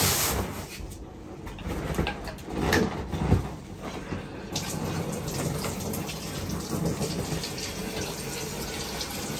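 A few knocks and plastic rubs as an inflatable pool is handled against a tiled wall. About halfway in, a wall tap is opened and a steady stream of water starts running into the pool.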